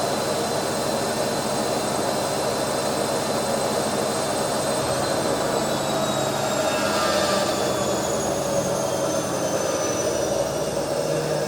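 Household automatic washing machine draining: the drain pump runs with a steady whine over rushing water.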